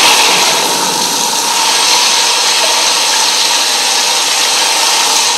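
Loud, even rushing noise of floodwater played through a hall's loudspeakers, breaking off abruptly at the end.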